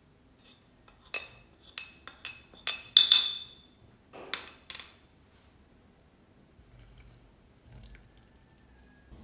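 A spoon clinking against dishes and the saucepan as unsweetened cocoa powder is spooned in: about nine sharp clinks over four seconds, the loudest near the middle.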